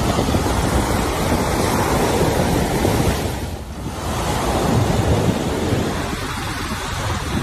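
Strong wind from a waterspout close by rushing and buffeting the microphone, mixed with surf breaking on the beach. The wind eases briefly about halfway through, then picks up again.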